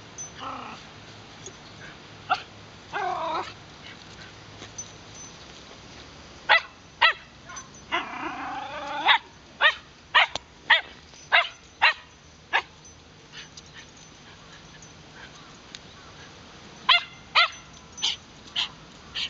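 Wire fox terrier barking excitedly in short, sharp yaps that come in runs, about two a second. Drawn-out whines come between the runs.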